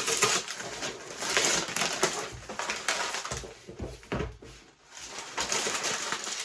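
Rustling and clattering of cardboard jigsaw puzzle pieces and their packaging being handled, with many small clicks.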